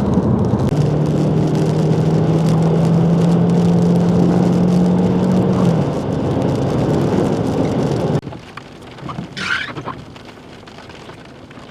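Heavy rain beating on a vehicle during a thunderstorm, with a steady hum for a few seconds; the noise drops off abruptly about eight seconds in.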